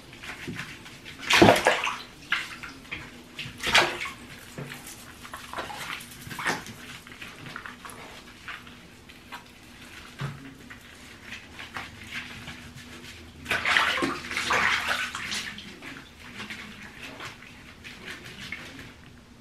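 Water sloshing and splashing in a shallow bathtub as a small dog is washed by hand, in irregular splashes; the loudest come about a second and a half in, near four seconds, and in a longer run around fourteen seconds.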